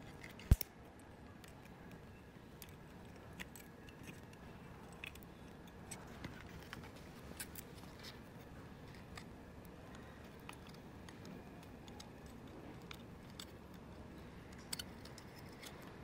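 Small plastic parts and wires handled by hand, with scattered light clicks and taps of the plastic housing pieces. One sharp, loud click about half a second in.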